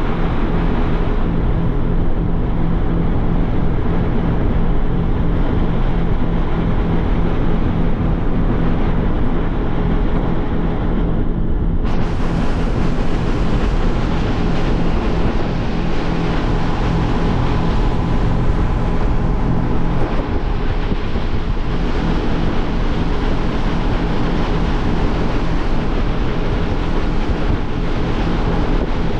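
Motorboat under way at speed: the engine runs with a steady hum, under the rush of water along the hull and wind on the microphone. The hiss of water and wind grows brighter about twelve seconds in.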